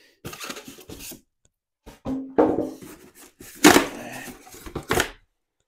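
Styrofoam packing blocks rubbing and squeaking against the cardboard box as they are pulled off, in two bouts of handling with a few sharp knocks. The loudest knocks come near the middle and again about five seconds in.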